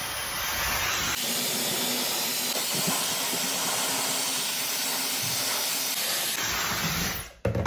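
Dyson Supersonic hair dryer blowing a steady rush of air. Its low rumble falls away about a second in and returns near the end, when the dryer cuts off and a sharp knock follows.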